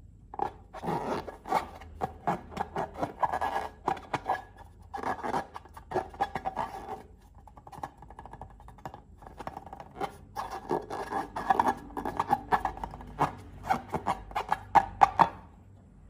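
Slime being squeezed and worked by hand: rapid, irregular sticky clicks and squelches in two spells, the first about seven seconds long and the second about five.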